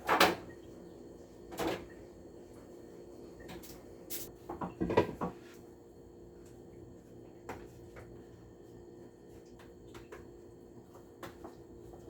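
Kitchen handling knocks and clatters as seasoned chicken pieces are put into a foil baking pan: a sharp knock at the start, another about a second and a half later, a cluster of clatters around five seconds in, then a few small clicks.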